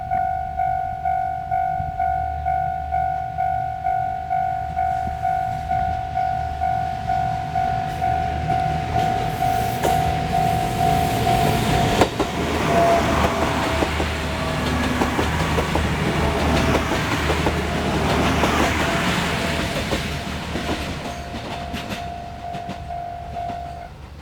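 Japanese level-crossing alarm ringing in an even, repeating tone, about one and a half strokes a second. About ten seconds in, the Yufuin no Mori diesel express train rumbles over the crossing for roughly ten seconds while the alarm keeps ringing. The alarm stops near the end.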